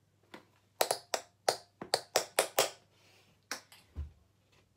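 Metal taps on a pair of Bloch tap shoes clicking as the shoes are knocked together by hand, about ten sharp clicks in quick irregular succession, then one more. A dull thump near the end.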